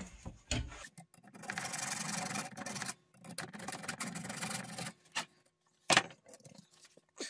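Small hacksaw cutting the end of a window screen frame's weather-strip channel, trimming the angled cut: two runs of quick scraping strokes with a short pause between. A few sharp knocks near the end as the frame is handled.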